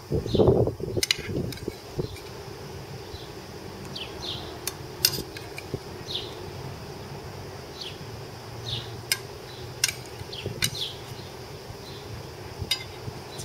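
A metal spoon scraping and clinking against a stainless steel frying pan as shrimp saganaki in tomato sauce is spooned onto a plate, with a handful of sharp clinks spread through. Behind it, a steady insect buzz and short bird chirps.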